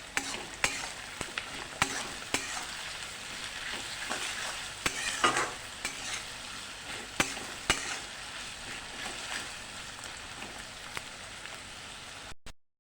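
Thinly sliced onions frying in hot mustard oil, sizzling steadily, with scattered clicks and scrapes of a spatula stirring them in the pan, as the onions are cooked down to beresta (deep-golden fried onions). The sound cuts out briefly near the end.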